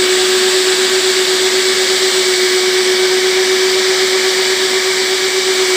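Vacuum motor of an upholstery extraction cleaner running steadily while the hose wand is drawn across wet sofa fabric: an even suction hiss over a constant hum.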